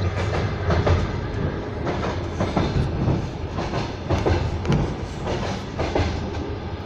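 Passenger train running over unwelded, jointed rails: a steady rumble with the wheels clicking over the rail joints, heard through a partly opened carriage window.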